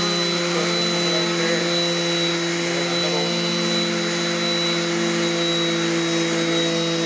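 Electric random orbital sander with a 120-grit disc running steadily as it sands the clear coat off an oak cabinet door.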